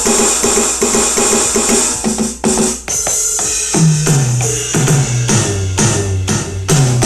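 AMW ED3 electronic drum kit played through a loudspeaker: a quick, even run of pitched rim hits for about two and a half seconds, then, from about four seconds in, a series of drum hits that each drop in pitch after the strike.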